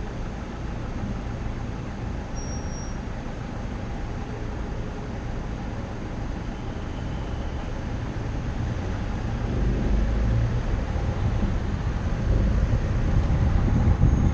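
Low rumble of a car's engine and road noise from inside the moving car, steady while it creeps along in queued traffic, then growing louder about ten seconds in as it picks up speed.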